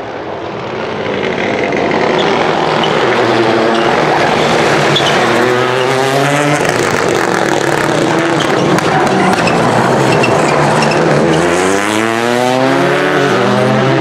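Rally car engine at full race pace, revs climbing and falling with gear changes, then climbing steeply near the end as the car accelerates away.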